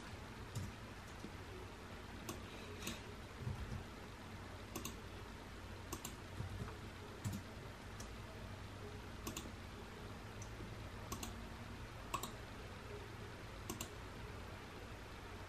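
Computer mouse clicking: faint single clicks spaced about one to two seconds apart, a dozen or so in all, over a low room hum.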